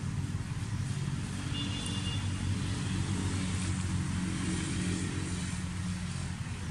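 A steady low rumble, with a faint brief high double tone about one and a half seconds in.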